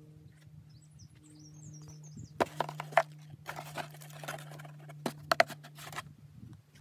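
A hand rummaging among straps stowed in a plywood door pocket: rustling with a few sharp knocks and clicks, from about two and a half seconds in to near the end. A steady low hum sits underneath, and birds chirp faintly early on.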